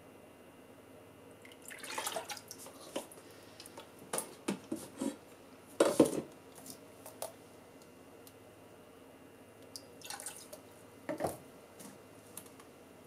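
Spoonfuls of liquid seasoning dripping and splashing as they are poured into a metal measuring spoon and tipped into the water in a rice cooker's inner pot, with light taps of the spoon on metal. The sounds come as a handful of separate small splashes, the loudest about six seconds in.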